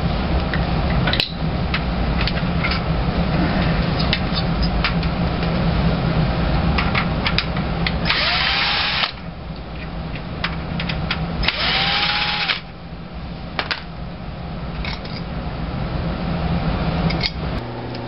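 Cordless drill/driver run twice, about a second each, its motor pitch rising as it spins up, backing out the screws that hold a fuel rail to a tankless water heater burner. Light clicks of metal parts being handled come between.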